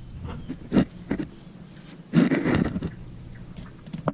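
Handling noises under a truck: a gloved hand knocks and rubs against the winch driveshaft, with a couple of light knocks and then a louder scraping rustle about two seconds in, and a sharp click near the end.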